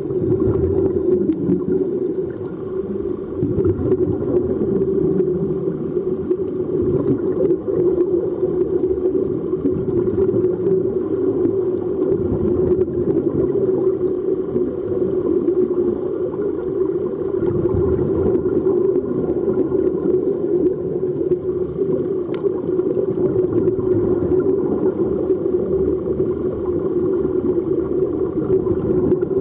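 Muffled underwater sound on a scuba dive: a steady, loud rush of water and bubbling with almost no high sounds.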